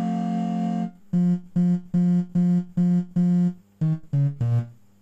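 Portable electronic keyboard (synthesizer) being played. A held chord stops about a second in, followed by seven short repeated chords and then three shorter notes stepping down in pitch.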